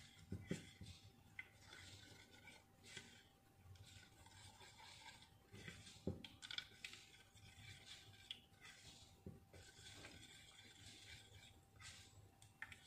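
Faint scraping of a spoon stirring a thin carrot and cornstarch mixture in a small bowl, with a few soft knocks of the spoon against the bowl.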